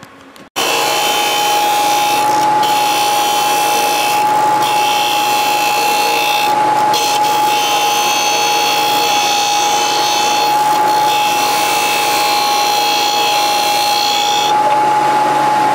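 Porter-Cable bench belt sander running with a steady motor whine while a metal engine backing plate is held against the belt, making a harsh grinding hiss. The grinding drops out briefly a few times, and near the end it eases off while the motor keeps running.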